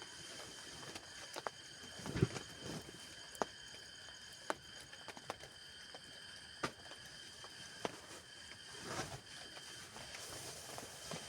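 Scattered drips tapping on a tent, a sharp tap every second or so, with a couple of duller rustles, over a steady faint high-pitched hum.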